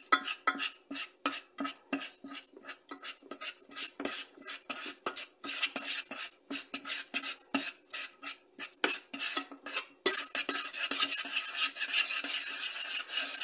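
Metal spoon stirring a thick butter-and-flour roux in a stainless steel saucepan, scraping the pot in quick repeated strokes; about ten seconds in, the strokes run together into a steadier scrape.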